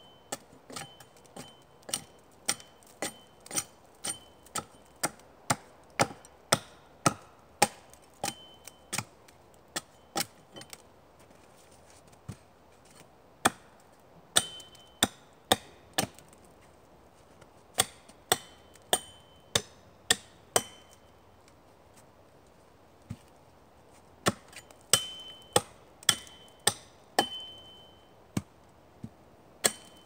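Axe chopping into an upright wooden pole as it is hewn down one side: sharp wooden blows in runs of about two a second, broken by a couple of short pauses. Some blows leave a brief high ringing note from the axe head.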